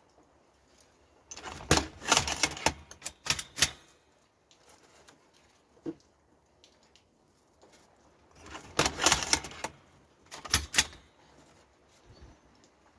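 Hand-operated mechanical tobacco rolling machine for thick cigarettes being worked, giving bursts of rapid clicking and rattling. There is one bout starting a little over a second in and lasting about two seconds, a single click a few seconds later, and a second bout from about eight and a half seconds in.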